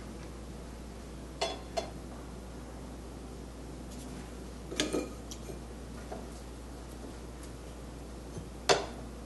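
A few short clinks of brushes knocking against a ceramic plate: a pair about a second and a half in, a couple more around five seconds, and a sharper one near the end.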